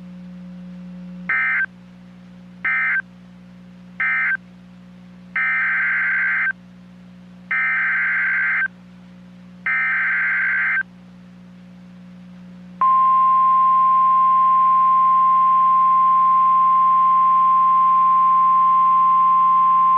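NOAA Weather Radio alert tones: three short screeching SAME data bursts (the end-of-message code), then three longer SAME header bursts of about a second each, then a loud, steady, single-pitch 1050 Hz warning alarm tone starting about 13 seconds in, which announces a new warning. A faint low hum runs underneath.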